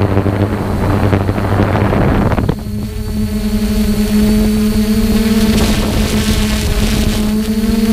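Multirotor drone's electric motors and propellers humming steadily, heard close from the drone's own camera, with wind noise on the microphone. About two and a half seconds in, the wind noise drops away and the hum shifts to a higher, steadier pitch.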